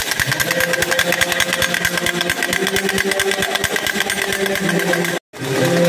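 Wooden hand rattle (matraca) clacking in a rapid, even stream, the Holy Week clapper sounded in place of bells on Good Friday, with long held sung notes underneath. It cuts out abruptly for a moment near the end.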